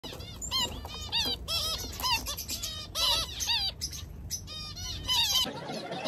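Zebra finches calling: many short, arching call notes in quick runs, several a second. About five and a half seconds in they give way to a steady background hiss.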